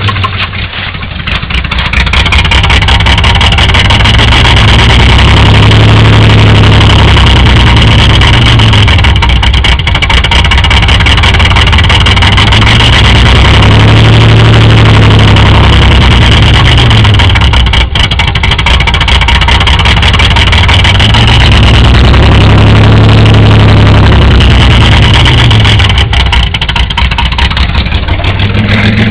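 Pontiac Firebird engine running with a knock. It is revved up slowly and let back down about three times, each rise and fall taking several seconds.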